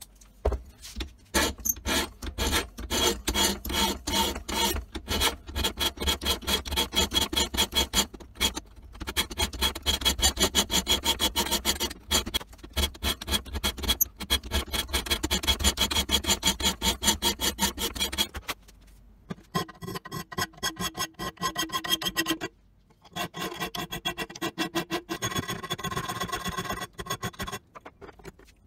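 Hand file rasping across the edge of a steel karambit blade cut from a motorcycle brake rotor, in runs of quick back-and-forth strokes with short pauses between runs. The later runs sound thinner, with a slight ring.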